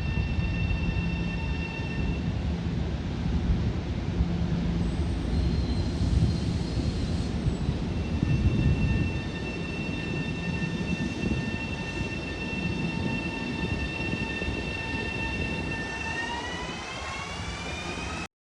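Long Island Rail Road electric train running: a steady low rumble with a steady whine on top. The whine starts rising in pitch about two seconds before the end. The sound cuts off abruptly.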